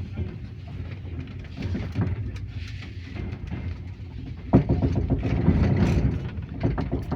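Passenger train running, a steady low rumble of wheels on rails with irregular clatter, growing suddenly louder about four and a half seconds in.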